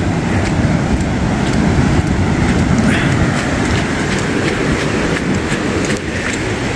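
Loud, steady noise of wind buffeting the microphone over breaking surf, strongest in the low end.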